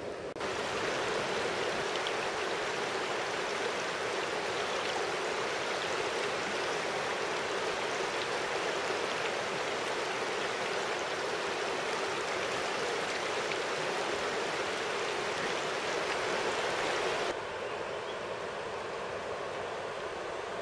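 River water flowing over stones in a shallow riffle, a steady hiss of running water. It steps up just after the start and drops abruptly to a quieter flow about three seconds before the end.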